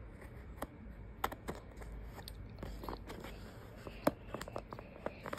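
Hands handling a foam clamshell takeout container and a plastic bag: scattered clicks and crackles, the loudest about four seconds in.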